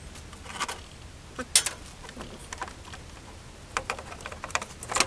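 Scattered light clicks and knocks of hand tools and metal parts during engine disassembly, with one sharp click about one and a half seconds in and a quick run of clicks near the end.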